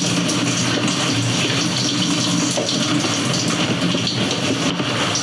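Handheld shower head running a small stream of water over a person's head and body in a camping-car shower cubicle: a steady spray and splatter. A steady low hum runs under it, which fits the motorhome's water pump running while water is drawn.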